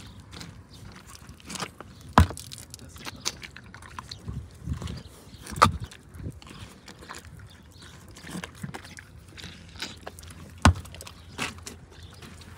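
Horse biting and chewing watermelon: a run of wet crunches and clicks, with three louder sharp knocks spread through.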